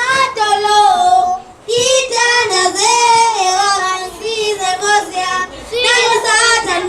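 Young voices singing a high melody in phrases, with short breaths between them.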